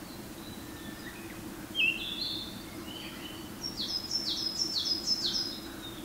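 A male Japanese thrush singing: a clear whistled phrase about two seconds in, then a quick run of five repeated high notes, each dropping in pitch.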